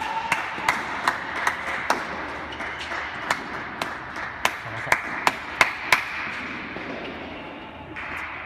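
Tennis balls bouncing on the hard indoor court and off rackets in a large hall: a run of sharp knocks, about two or three a second, loudest a little past the middle, stopping about six seconds in.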